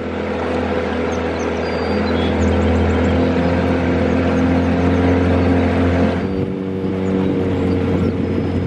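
Boat motor running steadily under way, a low hum with steady pitched tones over the sound of the moving boat; the motor's pitch changes about six seconds in.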